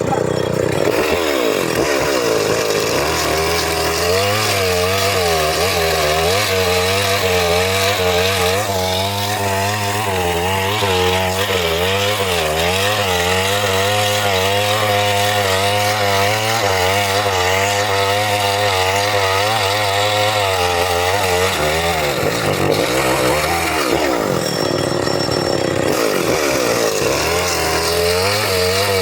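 Chainsaw running at high revs and cutting through wood, its pitch wavering as the chain bites under load. About three quarters of the way through it eases off briefly, then picks back up and cuts on.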